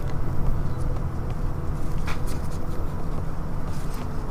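A steady low rumble, with a few faint scraping ticks from a plastic pry tool lifting a vinyl skin off the back of a phone, the clearest about two seconds in.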